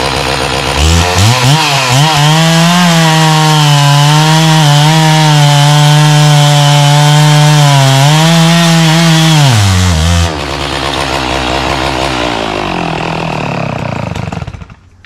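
Stihl MS 660 two-stroke chainsaw revving up about a second in and cutting through a log at full throttle, its pitch wavering under load. About ten seconds in it drops back to a lower running note, then dies near the end as the saw runs out of fuel.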